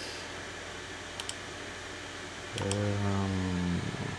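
Two quick mouse clicks over the steady whir of the computer's cooling fan, then a man's low hum, a held "hmm" lasting about a second, near the end.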